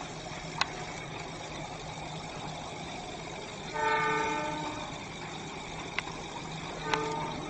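Train locomotive horn sounding twice: one blast of just under a second about four seconds in, then a short toot near the end, over a steady low background hum.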